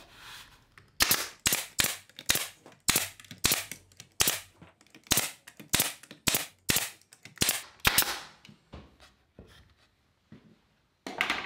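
Nail gun firing 1.5-inch nails into a pine cross brace to tack it to a sawhorse leg: about fifteen sharp shots, roughly two a second, then a few fainter knocks near the end.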